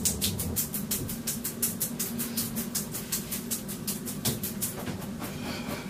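A towel scrubbed fast and hard over wet hair, an even rhythm of rough rubbing strokes about five a second, over a steady low hum.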